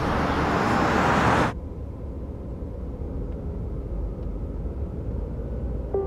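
A hissing noise from the street scene for about the first second and a half, then an abrupt cut to a car's engine running with a low, steady drone heard inside the cabin.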